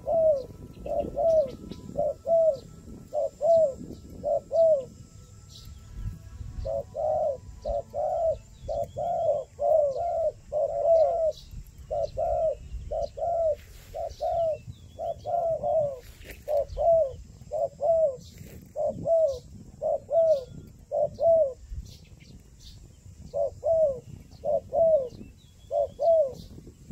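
Dove cooing: a long series of short, low coos, about two a second, in runs broken by short pauses, with faint high chirps of small birds behind.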